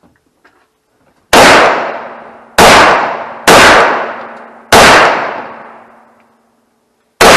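Five single shots from a semi-automatic AK-pattern rifle, fired at an uneven pace, the fourth and fifth further apart. Each crack is followed by a long echo that dies away over about a second and a half.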